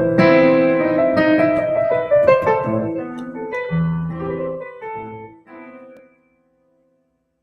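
Electric piano played through the studio speakers: a few chords and single notes, ringing on and dying away, with the playing fading out about six seconds in.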